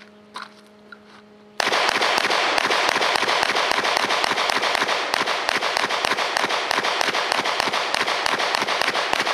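Glock 17 9mm pistol fired rapidly: a long, fast string of sharp shots starting suddenly about a second and a half in and running on without a break.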